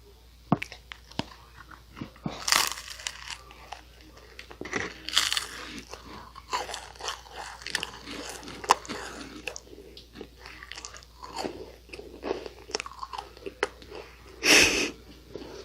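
Biting and chewing Nunettine, flaky Korean puff-pastry cookies: a run of crisp crunches and crackles, with a loud bite near the end.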